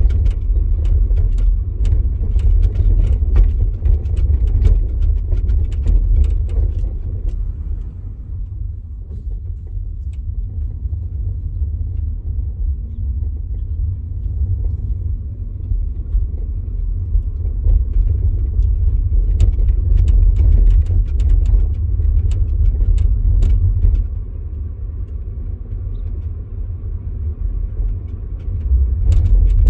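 VW e-Up electric car on the move: a steady low rumble with many short knocks and rattles scattered through it, which the owner suspects are coming from the rear axle. It gets quieter for a few seconds twice.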